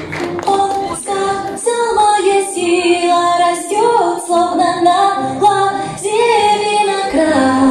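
A song with a woman's voice singing a melody over music, the notes held and gliding between pitches.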